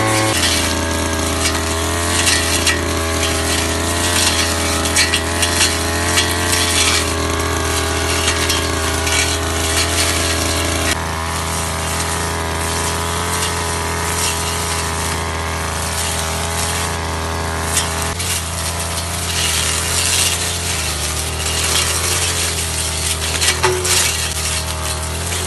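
Ogawa backpack brush cutter's two-stroke engine running at high speed while its blade slashes through dense weeds and brush, with frequent crackling hits as stems are cut. The engine note shifts slightly a couple of times.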